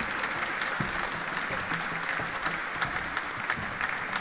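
Audience applauding with steady, dense clapping at the end of a performance.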